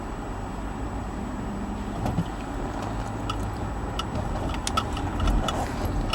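Car driving slowly through city traffic, heard from inside: a steady low road and engine rumble with a scatter of short clicks.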